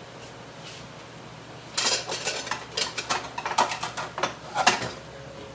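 Ceramic dishes clattering and clinking as a bowl is fetched from among other dishes. It is a quick run of knocks that starts a little under two seconds in and stops about a second before the end.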